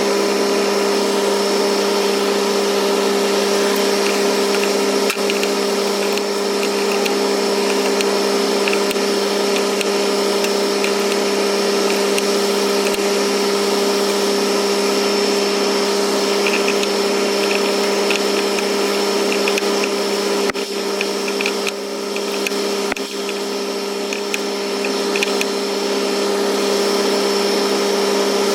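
A steady, unchanging machine drone at a constant pitch, with faint ticks now and then.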